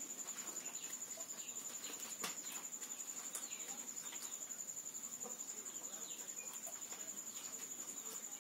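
A steady, high-pitched insect trill, pulsing quickly without a break, with faint scattered ticks and short chirps over it.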